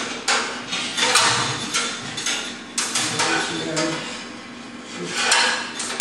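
Garage door hardware being worked by hand at the steel door track: a series of sharp metal clinks and rattles as the safety cable and its fittings are attached.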